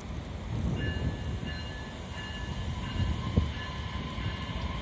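Metra Electric Highliner II bilevel electric train moving past the platform: a steady low rumble of wheels on rail, joined about a second in by steady high whining tones, with a single thump a little past three seconds.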